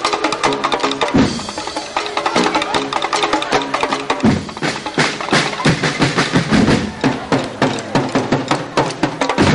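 Percussion-driven dance music: a fast, dense run of knocking hits over drums, with a low pitched figure repeating underneath.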